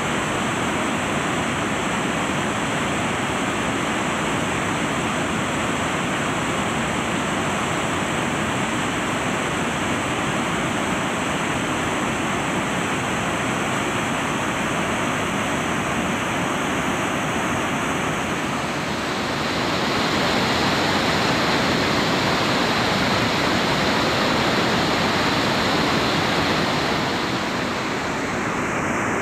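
Whitewater of a mountain river rushing steadily around and over boulders. Past the middle the rush grows a little louder and hissier for several seconds, then eases back near the end.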